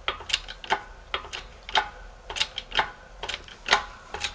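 Rapid, uneven metallic clicking, about three or four sharp clicks a second, from a jack-driven shop press as it works a new main bearing into a Yamaha YFZ450 aluminium crankcase half. The bearing is not yet starting into its bore.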